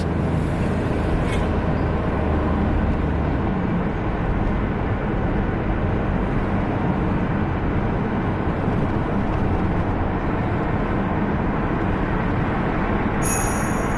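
Steady road and engine noise of a car driving in traffic, with a short high-pitched electronic beep near the end.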